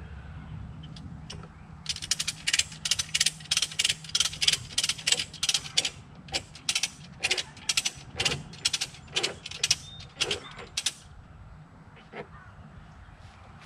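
Ratchet strap being cranked: a run of sharp pawl clicks, about three a second, starting about two seconds in and stopping near the end. The strap is tightening to pull a Camso over-the-tire track snug around a skid loader tire.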